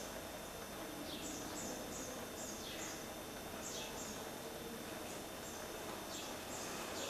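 Bird-like chirps: a string of short, high, downward-sweeping calls repeated every half second or so, over a steady hiss.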